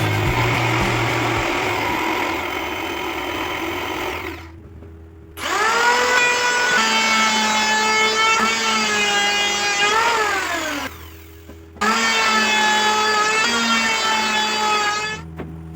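An electric power tool's motor running in three stretches, separated by abrupt drops to a low hum. Its whining pitch wavers, then rises and falls near the end of the second run.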